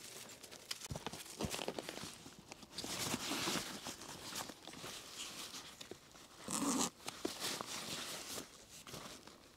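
Irregular rustling, scratching and crinkling handling noises with scattered small clicks. There is a louder stretch about three seconds in and a short louder burst near seven seconds.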